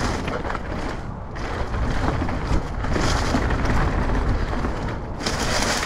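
Mountain bike rolling fast downhill over a dirt trail, with wind buffeting the microphone and tyre noise on the loose dirt; a louder hiss comes in about five seconds in.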